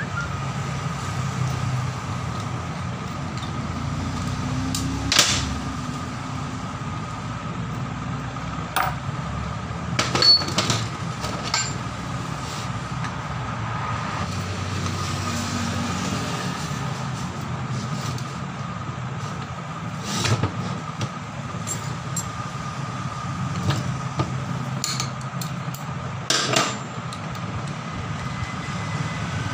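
Scattered metallic clicks and knocks of a hex key and hand tools against the metal housing of a heavy air impact wrench during disassembly. They come every few seconds over a steady background hum.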